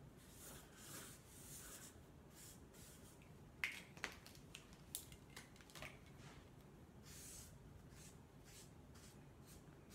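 Felt-tip Sharpie markers drawing on flip-chart paper: faint hissing, scratchy strokes, with several sharp clicks in the middle.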